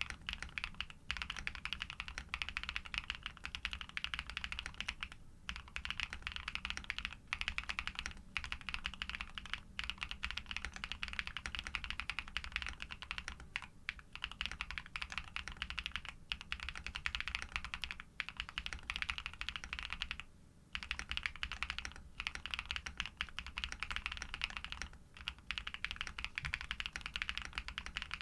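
Rapid, continuous typing on a Neo80 v2 custom mechanical keyboard fitted with lubed Pado v2 switches, PBT keycaps and a polycarbonate plate, with a few brief pauses.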